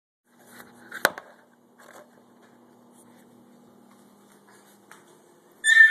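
A pet's short high-pitched whine that falls in pitch, starting near the end. Before it there is one sharp click about a second in, over a faint steady hum.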